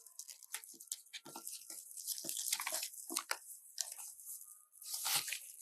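Packaging being unwrapped by hand: irregular crinkling and rustling with sharp crackles.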